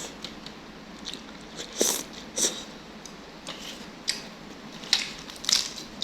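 Close-up eating sounds of a person chewing a mouthful of beef noodle soup, with several short, crisp, irregular bursts, the loudest about two seconds in and again near the end.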